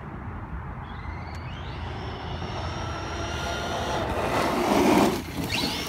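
The brushless motor of a DHK Maximus 1/8-scale RC monster truck whining under throttle. Its pitch rises about a second in and then holds, and the sound grows louder as the truck comes close, peaking about five seconds in before falling away.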